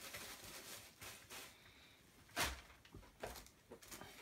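Plastic bag crinkling and rustling as a small item is unwrapped by hand, with a louder rustle about halfway through and a few light clicks near the end.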